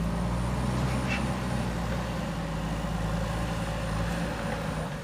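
Heavy diesel engine of construction machinery running at a steady pitch.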